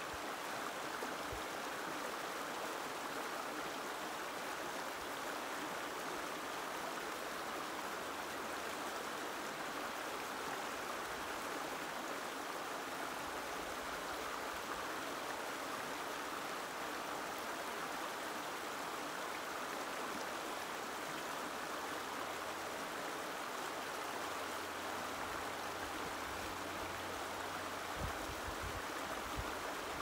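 Gentle stream water flowing and babbling steadily.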